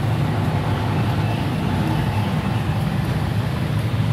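Steady low background rumble, unchanging throughout.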